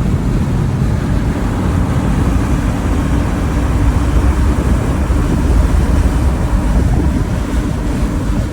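Strong wind buffeting the microphone: a loud, steady, gusty rumble.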